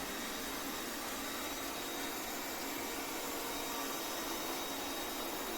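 Lefant M310 robot vacuum running steadily, an even whirring hiss with a faint, steady high whine.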